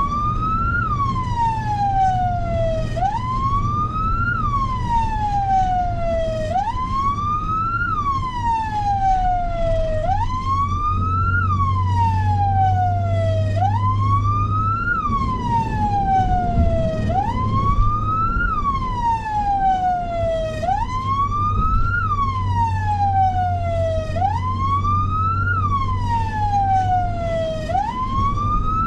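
Electronic emergency-vehicle siren on a wail: it rises quickly in pitch, then falls slowly, about every three and a half seconds, with a steady low hum underneath.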